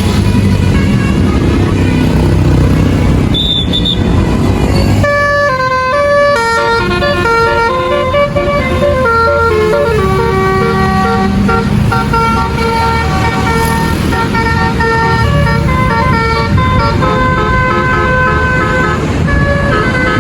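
Tour bus's basuri multi-tone musical horn playing a tune. Its held notes step up and down in pitch from about five seconds in, over the low rumble of the bus engine.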